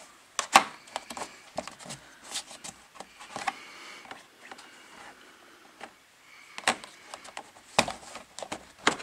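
Irregular clicks and knocks of the plastic under-engine cover being pushed back and flexed by hand, with faint rustling between them.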